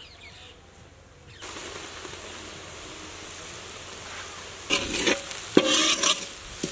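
Onion and spice masala frying in hot oil in an iron kadai. After a quieter first second or so it gives a steady sizzle, with louder irregular scraping and knocks from about five seconds in.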